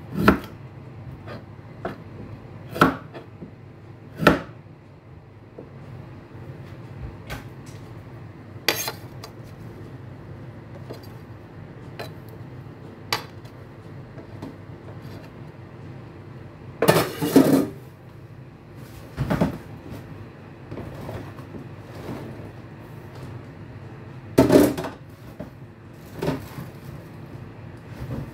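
Chef's knife cutting beetroot stems on a plastic cutting board: irregular sharp knocks of the blade on the board, with two louder bouts of clatter, one about midway and one near the end, over a steady low hum.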